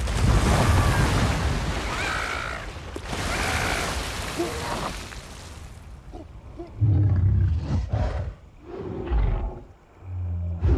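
Film sound effects: a loud rush of splashing water for the first few seconds, then deep, heavy growls from a giant ape in short spells.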